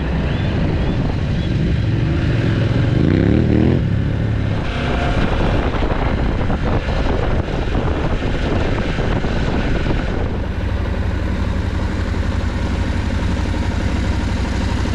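KTM adventure motorcycle's engine, heard from the rider's own bike: it rises in pitch as it accelerates about two to four seconds in. It then runs at low speed and settles to a steady low note from about ten seconds in as the bike slows almost to a stop.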